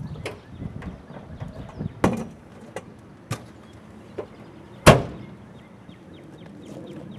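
Folding lawn chairs knocking and clattering as they are loaded into a car trunk, a handful of sharp knocks over the first four seconds, then the trunk lid slammed shut about five seconds in, the loudest bang.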